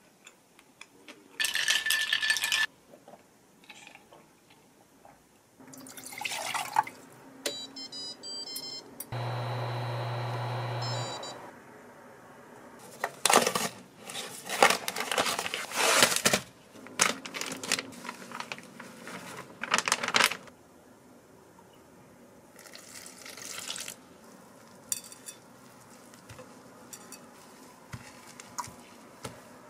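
Kitchen handling sounds: clinks, knocks and rustles of utensils against dishes and a glass mixing bowl, with a steady hum lasting about two seconds near the middle.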